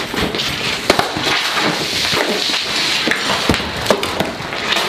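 A large plastic water-cooler jug bursting and spraying its contents, a loud continuous splashing rush broken by many sharp knocks and cracks.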